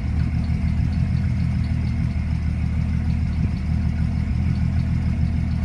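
Car engine idling steadily, with a faint regular ticking over it at about five ticks a second.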